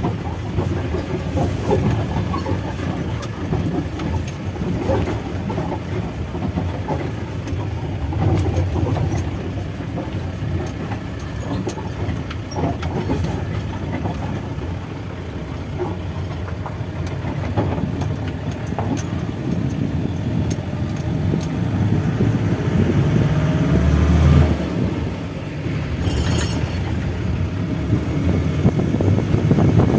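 Truck driving over a rough, broken mountain road: a steady engine and road rumble with constant rattling and knocking from the vehicle.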